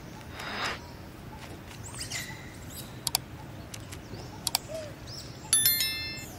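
Two sharp mouse-click pairs, then a bright chime of several stepped tones about five and a half seconds in: the sound effect of a subscribe-and-bell button animation. Underneath are faint outdoor ambience, a brief rustle and a few high chirps.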